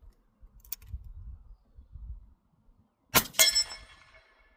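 Suppressed .45-70 rifle shot: a Handi rifle with a SilencerCo Hybrid 46 suppressor firing a 440-grain cast subsonic load. It is a short, sharp report, followed a split second later by a second sharp hit that rings metallically for about a second. A light click comes under a second in, before the shot.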